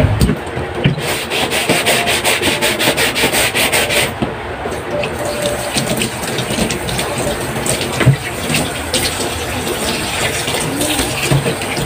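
Tap water running into a stainless-steel sink while a plastic chopping board is scrubbed by hand, with a fast run of scrubbing strokes between about one and four seconds in. A sharp knock about eight seconds in, the loudest moment.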